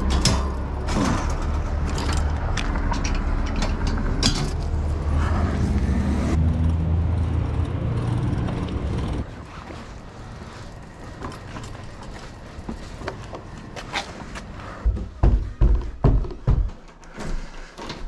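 City bus engine running steadily close by while a bicycle is handled on the bus's front bike rack, with metal clicks and clanks. About nine seconds in the bus sound cuts out, leaving a quieter background and a run of thumps and knocks near the end.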